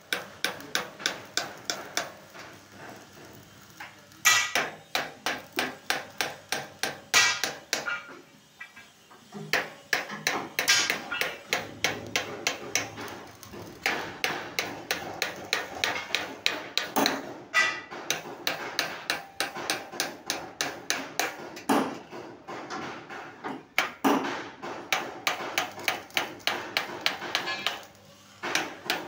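Hammer tapping a small punch into a thin polished steel sheet, tracing dotted decorative lines for a truck panel. The strikes come quickly and evenly at about four a second, with a short break about eight seconds in and another near the end.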